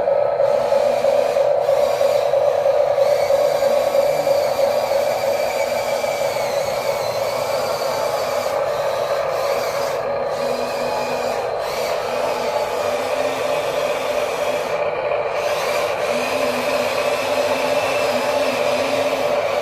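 Small electric motors and plastic gearboxes of radio-controlled toy construction machines whining steadily as they run, with fainter higher tones wavering as the load changes.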